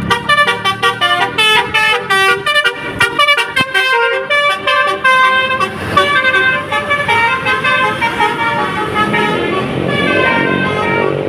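A bus's basuri telolet horn playing a fast melody, quick short toots at first and then longer held notes. Vehicle noise rises near the end.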